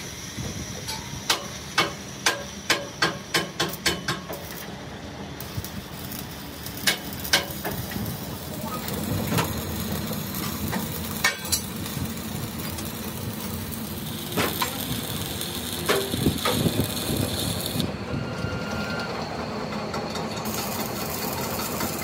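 A quick run of sharp metal taps on a rolled steel wheel-rim band, then the steady crackle and sizzle of an arc welder running a weld on the rim, with scattered pops and clicks.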